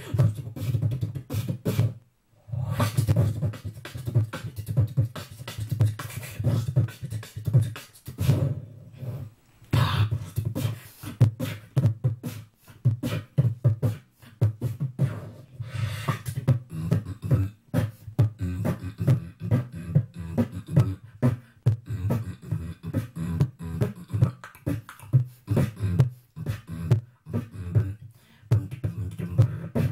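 Vocal beatboxing into a handheld microphone: a fast, rhythmic stream of mouth-made drum hits over deep bass tones, with a short break about two seconds in and another near the middle.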